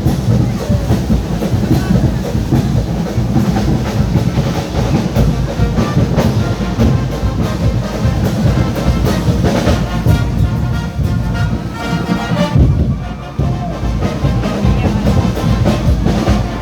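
Loud live carnival street music: heavy percussion hits under brass, with the horns coming forward about ten seconds in.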